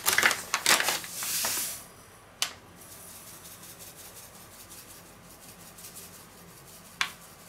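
Paper sugar packet rustling and crinkling as it is handled for the first two seconds, then a faint, even hiss of granulated sugar pouring from the packet into a stainless steel bowl. A sharp tap comes about two and a half seconds in and another near the end.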